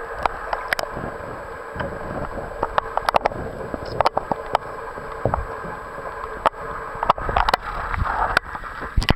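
Muffled underwater sound from a camera held below a lake's surface: a steady water hiss with many sharp clicks and knocks scattered through it.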